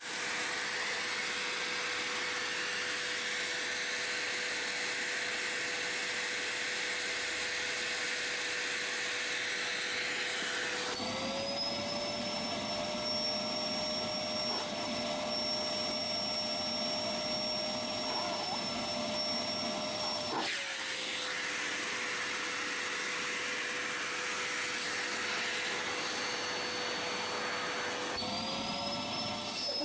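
Vacuum cleaner running steadily while it is run over a cat's fur. Its motor whine steps up in pitch about a third of the way in, drops back about two-thirds in, and rises again near the end.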